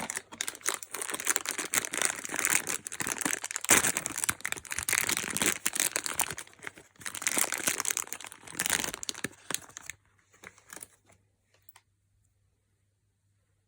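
Packaging of a Funko mystery box being handled and opened: dense, irregular crinkling and rustling that stops abruptly about ten seconds in, followed by a few faint clicks.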